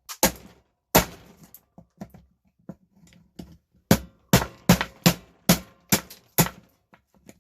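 Sharp blows struck on the hard plastic housing of an air mattress pump to break it apart: two hard hits and a few lighter taps, then a quick run of about seven strong blows, a little over two a second, in the second half.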